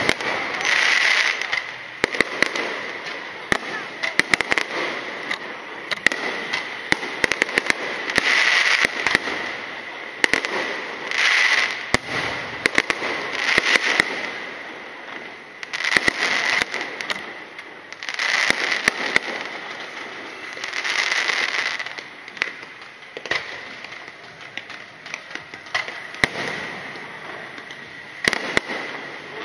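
Aerial firework shells bursting overhead in quick succession: many sharp bangs, with louder noisy swells every couple of seconds.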